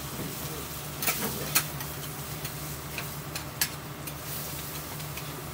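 Metal spatula clicking and scraping on a flat steel griddle while offal sizzles on it: scattered sharp clicks over a steady frying hiss and a low hum.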